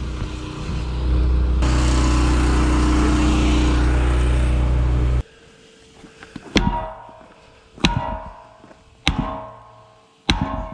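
Heavy hammer blows on a wheel loader's tire beside the steel rim, four sharp strikes about 1.2 seconds apart, each with a short metallic ring: breaking the tire's bead loose from the rim. Before them a steady low drone runs and cuts off suddenly.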